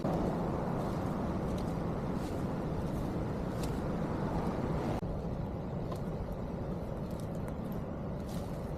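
Steady outdoor background rumble with a few faint clicks and rustles; the rumble drops slightly at an abrupt change about halfway through.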